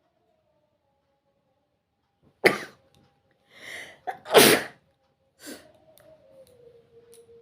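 A person sneezing: a sudden loud sneeze, a breath drawn in, then a second, even louder sneeze about two seconds after the first, followed by a smaller burst about a second later.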